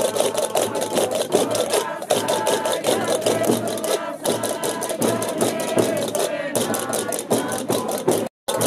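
Traditional Gomeran drum dance music: large rope-tensioned tambor drums beaten by a group, with fast, steady clicking and several voices singing over them. The sound breaks off for a moment near the end.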